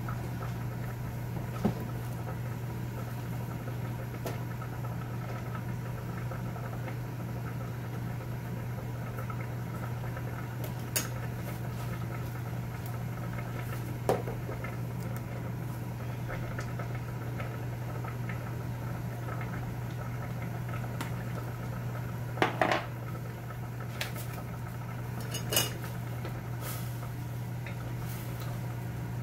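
A few separate clinks and knocks of kitchen utensils and dishes, with a small cluster of them about three-quarters of the way through, over a steady low hum.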